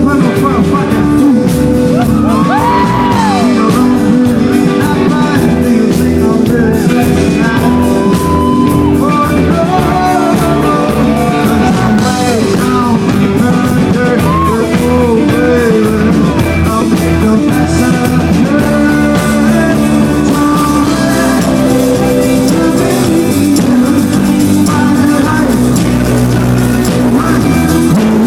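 Indie rock band playing live, with electric guitar, bass, drums and lead vocals, loud and steady.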